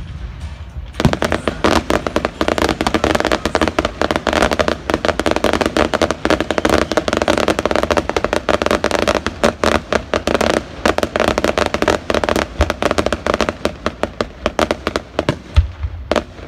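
Aerial fireworks display: a dense, continuous run of rapid crackling pops sets in about a second in and goes on for over ten seconds. A few deeper booms of shells bursting come near the end.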